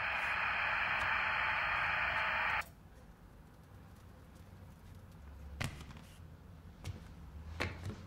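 Television static hiss that cuts off suddenly about two and a half seconds in. It leaves a quiet low hum with a few faint clicks.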